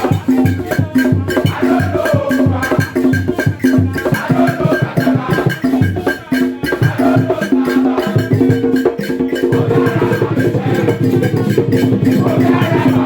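Loud music played over a hall's sound system during a sound check: a steady beat with light percussion and a punchy bass, the bass turning into a held, continuous line about nine seconds in.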